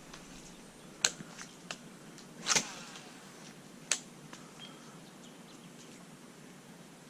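A few sharp clicks and knocks, with one louder brief swish about two and a half seconds in, over a quiet background. A faint bird chirp comes near the end.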